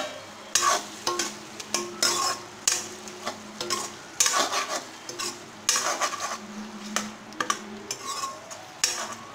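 Spatula stirring and scraping fried potato wedges through frying onion-spice masala in a metal pan, in repeated strokes roughly one or two a second.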